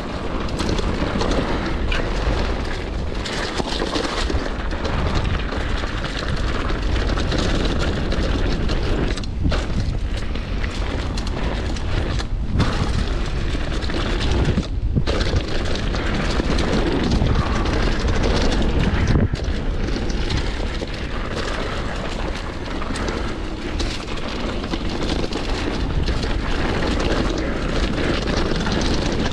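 Wind buffeting the microphone over the crunch and rattle of a downhill mountain bike rolling fast down a rough dirt trail, with a few brief dips.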